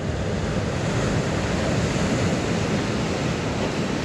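Ocean surf washing against the shore, a steady rush of water, with wind on the microphone.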